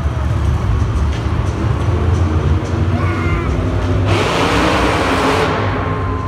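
Monster truck engines rumbling low and steadily across an arena, with a louder rush of noise about four seconds in that lasts a second or two.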